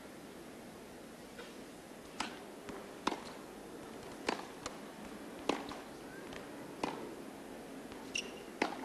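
Tennis rally: about six sharp racket strikes on the ball, a little over a second apart, with softer ball bounces between them, over a faint steady arena hush.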